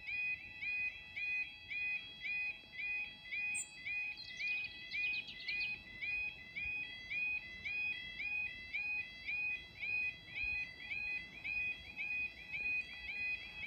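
UK level crossing warning alarm sounding: a repeating warble that rises and falls, about twice a second, while the barriers are down for an approaching train.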